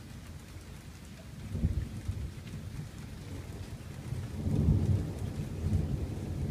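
Thunder rumbling over steady rain, with one roll about one and a half seconds in and a longer, louder roll building from about four seconds.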